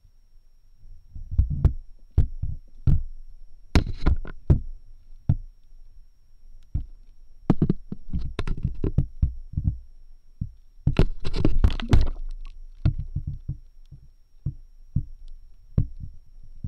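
Irregular muffled knocks, thumps and sharper clicks, picked up underwater beneath the ice, with denser clusters about four seconds in and again around eleven to twelve seconds in.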